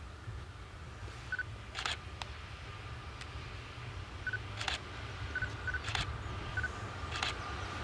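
Several sharp camera shutter clicks, a second or so apart, with short high beeps between them, over the low rumble of a Renfe 269 electric locomotive and its passenger train drawing closer.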